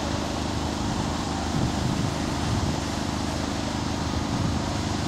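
Steady outdoor background noise with a low hum, unchanging throughout, with no distinct sound event.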